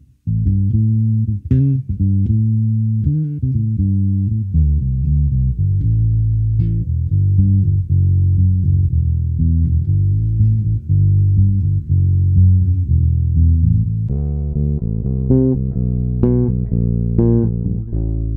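Orange O Bass with its single split-P pickup, played fingerstyle through a direct signal with the tone control rolled off: a dark, rounded bass line of plucked notes. In the last few seconds the notes take on sharper plucks and more upper ring.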